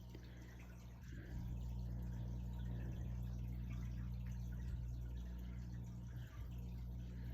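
Water running steadily with a low hum, getting louder about a second in.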